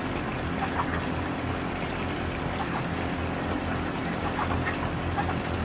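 Steady low hum and hiss, like a motor or fan running, with a few faint short chirps.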